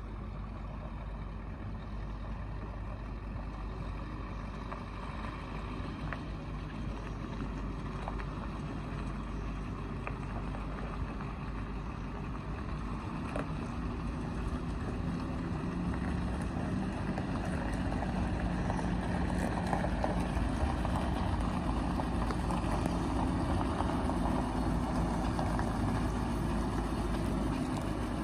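Scania R580's V8 diesel engine running as the tractor unit hauls a loaded three-axle trailer slowly forward, getting steadily louder as it approaches, most of all over the second half.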